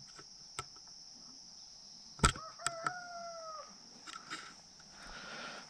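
A rooster crows once, faint and distant, about two seconds in: a single call a little over a second long that sags in pitch at the end. It comes just after a sharp click, which is the loudest sound, and a couple of lighter clicks follow.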